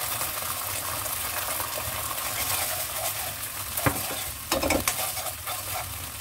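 Garlic, chili and tomato ketchup sizzling in hot oil in a nonstick wok, a steady hiss. About four seconds in, a spatula stirs and scrapes through the sauce with a few short knocks against the pan.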